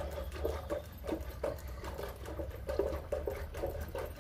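Buttermilk sloshing and splashing in a vessel in short, irregular splashes, over a low steady hum.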